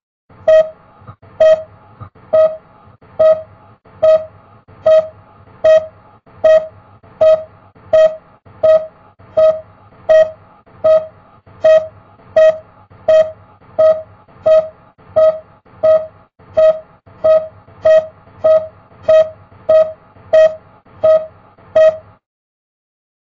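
Repeating electronic beep heard through Oticon Sensei hearing aids paired with a Streamer Pro: one short mid-pitched tone a little more than once a second, steady and evenly spaced, about two dozen times, stopping just before the end.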